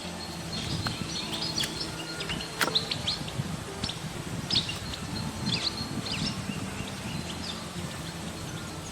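Small birds chirping: many short, quick calls, scattered irregularly, over a steady low background rumble.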